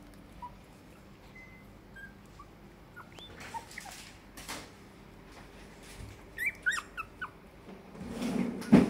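Seventeen-day-old Shiba Inu puppies giving short, high squeaks and whimpers, scattered at first and bunched into a quick run about six and a half seconds in. Near the end a louder rustle builds and ends in a sharp knock.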